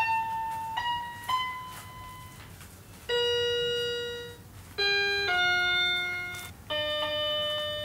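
Electronic learning toy in music mode playing synthesized notes: three short rising beeps, then four longer held tones that step down and back up.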